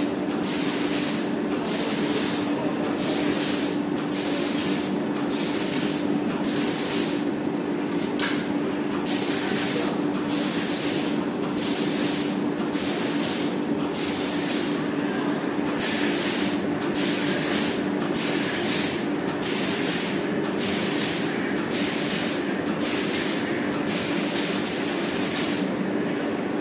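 Robot arm's paint spray gun spraying red paint in short hissing bursts, about one a second, over a steady low hum.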